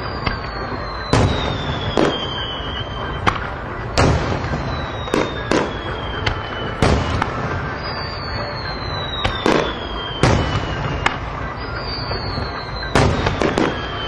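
Fireworks display: shells bursting with sharp bangs about once a second, some in quick pairs, over a steady rumble. A long falling whistle recurs every few seconds.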